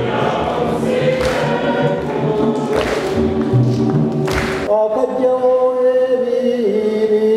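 Church choir singing a gospel-style hymn. About five seconds in, the singing settles into long held notes.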